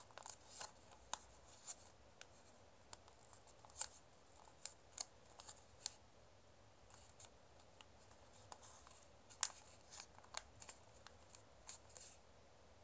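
Origami paper crackling and crinkling as fingers fold and press creases into it: scattered sharp little crackles at irregular intervals, the loudest about two thirds of the way through.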